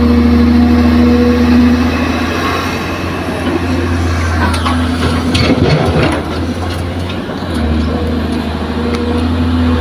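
Diesel engines of a Kobelco hydraulic excavator and a dump truck running steadily. About four to six seconds in, dirt and rocks clatter as the excavator's bucket empties into the truck's steel bed.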